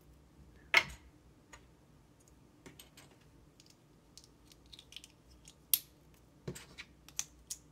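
LEGO bricks and plates clicking and clacking as they are handled and pressed together: a scatter of sharp clicks, the loudest just under a second in and again about six seconds in.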